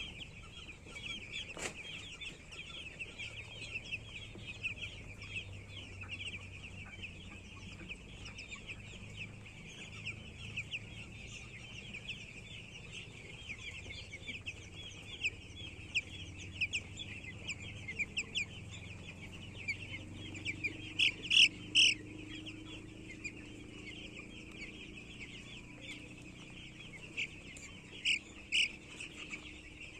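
A flock of many chicks peeping together in a continuous high-pitched chatter, with a few louder, closer peeps about two-thirds of the way through and again near the end.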